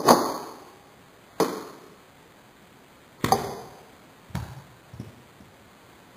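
Sharp plastic clacks from a home-built Lego bolt-action rifle being worked: five clacks spread over about five seconds, the first the loudest and the last two softer.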